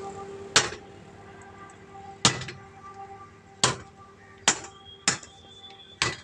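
Six heavy hammer blows on metal at uneven intervals: a sledgehammer striking an angle-iron strip to break the stuck bead of a truck tyre off its rim.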